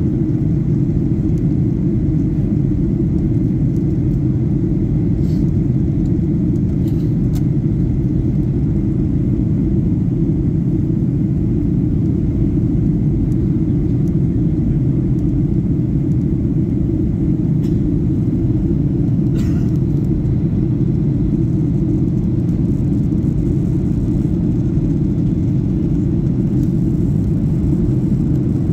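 Steady low roar of an airliner's engines and airflow heard inside the passenger cabin, constant throughout.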